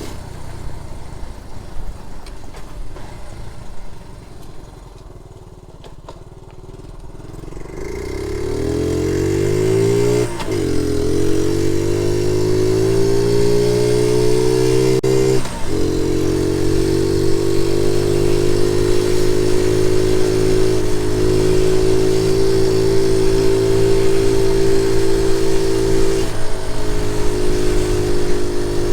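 Honda Z50J Monkey's small single-cylinder four-stroke engine pulling away from low revs. Its note rises through the gears and drops briefly at each change, about 10 and 15 seconds in, then settles to a steady cruising note, with a short dip near the end.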